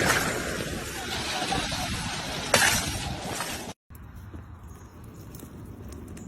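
A single sharp crash about two and a half seconds in, over a loud, steady noise, then an abrupt cut to a much quieter stretch of background noise.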